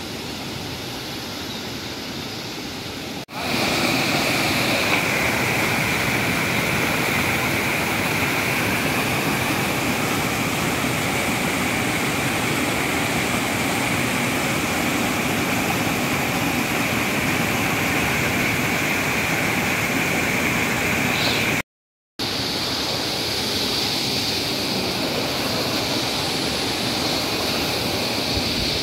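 Swollen stream rushing over a spillway and rocky rapids: a steady, full-range rush of water noise. It grows louder at a cut a few seconds in and breaks off for a moment about two-thirds of the way through.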